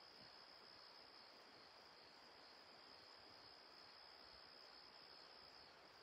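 Near silence: faint room tone with a steady high-pitched tone over a low hiss.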